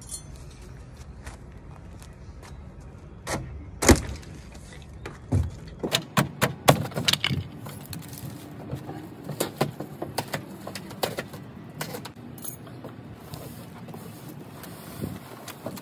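A large cardboard shipping box being unpacked by hand: one loud sharp knock about four seconds in, then a quick run of knocks and crinkles from about six seconds on, as the box's loose straps and cardboard top are handled and pulled off.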